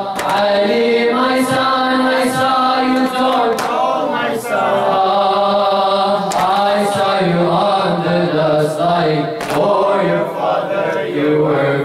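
Male voices chanting a Shia nouheh lament a cappella: a slow, continuous sung line with no instruments.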